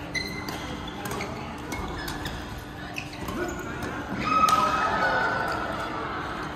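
Badminton rally in a large echoing hall: repeated sharp cracks of rackets hitting the shuttlecock, mixed with short high squeaks of shoes on the court floor. About four seconds in, players' voices rise loudly for a couple of seconds as the rally ends.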